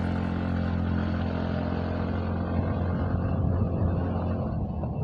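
Motorcycle engine running steadily while riding, with road and wind noise around it.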